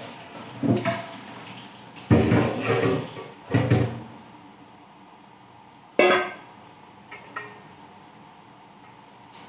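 Intermittent kitchen clatter off-screen: several loud bursts in the first four seconds, then one sharp knock about six seconds in, with a quiet steady background between.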